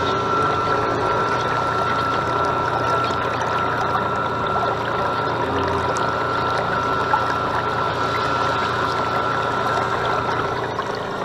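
A radio-controlled model Oakley lifeboat's drive motor running with a steady whine, water rushing and splashing past the hull, heard from on board. The whine stops near the end.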